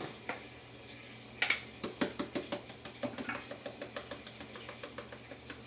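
A utensil stirring sauce in a saucepan, with cornstarch being worked in to thicken it. There is a knock about a second and a half in, then a run of quick light clinks against the pan, about four or five a second.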